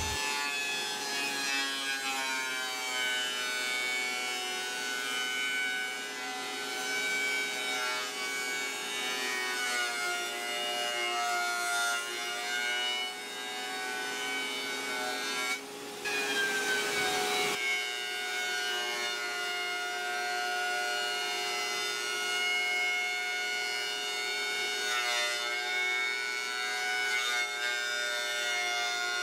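Benchtop thickness planer running with its dust collector, planing reclaimed pine boards: a loud, steady machine whine made of several tones, some of which waver in pitch.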